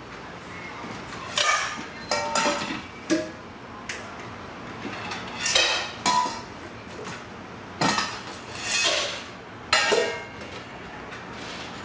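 Bowls and dishes clanking and clinking at a counter as the dogs' food is dished out: a run of separate clattering knocks, about one to two seconds apart.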